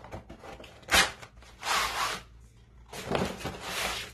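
Cardboard packaging being handled and opened: a sharp knock about a second in, then two stretches of cardboard and paper sliding and rustling.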